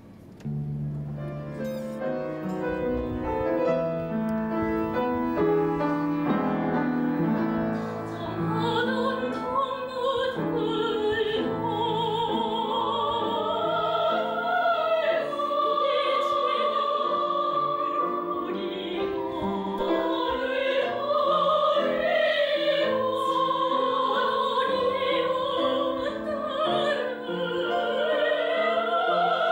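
A woman singing in a classically trained style with wide vibrato, accompanied by piano. The piano plays alone at first, and the voice comes in about eight seconds in.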